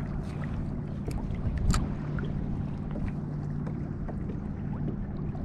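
Small waves lapping against a plastic fishing kayak's hull as it drifts, with scattered light ticks and a slightly louder knock a little under two seconds in, over a low steady hum.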